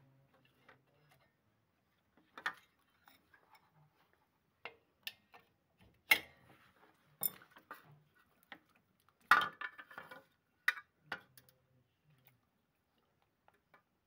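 Irregular small clicks and taps of hands handling a refrigerator compressor's starting relay and its plastic wire connectors while the relay is opened and checked, with the loudest clicks a little past six seconds and past nine seconds in.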